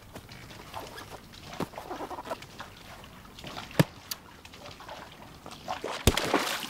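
A soccer ball smacks down into a shallow inflatable paddling pool, throwing up a splash of water near the end. A single sharp knock comes a little earlier, a few seconds in.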